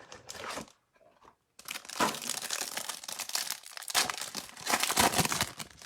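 Plastic wrapping of a trading-card hanger box being torn open and crinkled, after a short pause about a second in.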